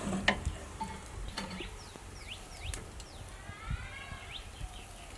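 Birds chirping in short, quick calls, with a longer arching call about four seconds in. Two sharp knocks sound in the first second and a half.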